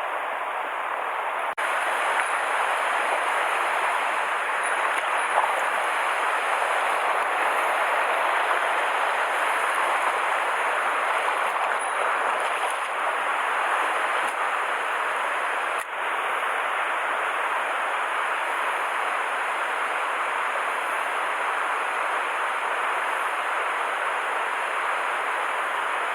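Steady rushing of a mountain stream's water, an even hiss-like flow that drops out briefly twice, about a second and a half in and again near the sixteen-second mark.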